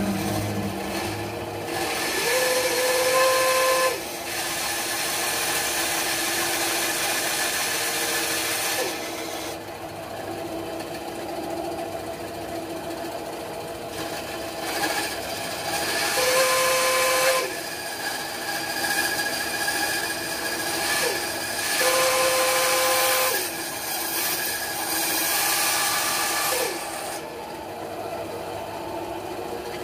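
Titan bandsaw running and cutting small pieces of wood. The cutting noise comes and goes in several stretches, some with a steady whistling tone.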